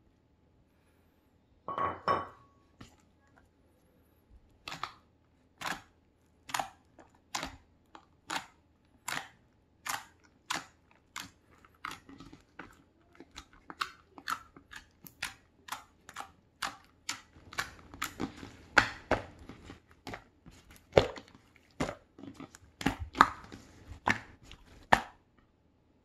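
Purple slime being pressed and poked by hand, making sharp wet pops and crackles as air pockets in it burst. There is a louder squelch about two seconds in; the pops then come about one a second and turn faster and denser near the end.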